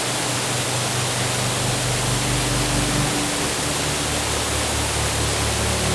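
Waterfall rushing as a steady, even roar of falling water. Low sustained music notes sound underneath and shift about three seconds in.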